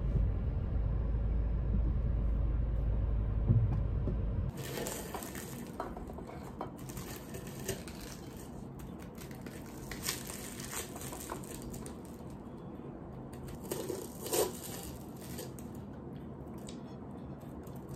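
Low, steady rumble inside a car for the first four or so seconds. Then a knife and fork cutting a flaky pastry on a plate: scattered clinks and scrapes of cutlery on the plate, a couple louder than the rest, with the crust crunching.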